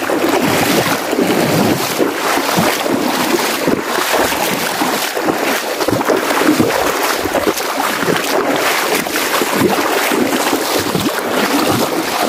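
Shallow river water rushing and splashing at a river crossing: a steady rush broken by many small splashes.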